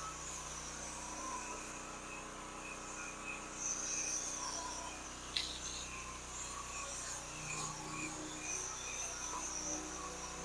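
Pressure washer spray hissing against the house during a soap application for a house wash, the hiss rising and falling as the wand moves, over a steady low hum from the machine. A single sharp click about halfway through.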